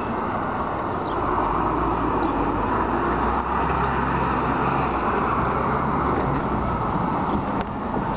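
Articulated diesel city bus driving past close by, its engine hum and tyre noise strongest as it goes by broadside around the middle, then pulling away.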